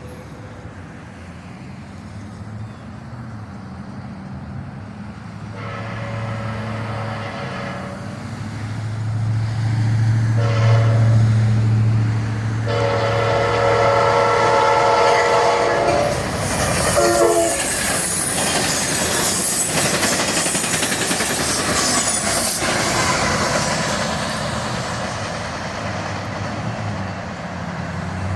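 A diesel locomotive approaching and sounding its air horn in several blasts, the longest held about three seconds starting around 13 seconds in, while its engine rumble grows louder. From about 16 seconds the train passes close by with a loud, steady rush of wheel and rail noise.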